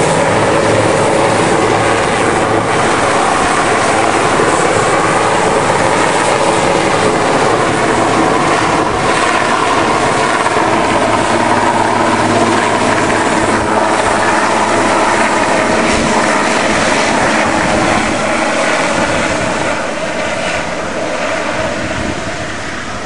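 Firefighting helicopter carrying a slung water bucket flying overhead, its rotor and engine loud and steady, then fading in the last few seconds as it moves away.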